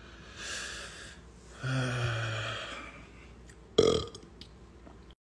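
A man burps once, a drawn-out low burp lasting about a second, while drinking from a soda can. A short, loud sound follows just before four seconds in.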